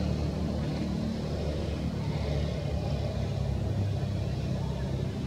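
A steady low rumble, even throughout, with nothing sudden standing out.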